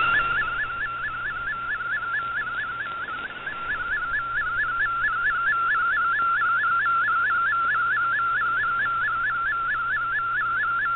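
Shortwave digital-mode picture signal (Fldigi MFSK image) received in AM on an Icom IC-R8600: a warbling tone with a quick upward chirp repeating about three or four times a second, over shortwave hiss. It carries an image being decoded line by line, and the signal fades briefly a few seconds in.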